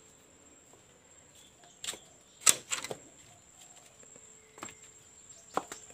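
Walking along a garden path, with a handful of short sharp knocks and scuffs, the loudest about two and a half seconds in. Under them runs a faint, steady, high-pitched insect trill.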